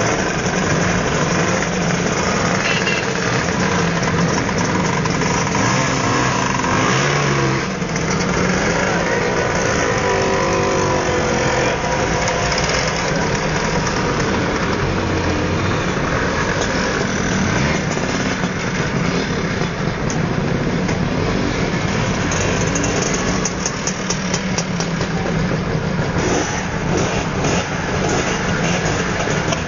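A group of Lambretta and Vespa motor scooters running together, engines idling with revs rising and falling several times around the middle as the machines pull away.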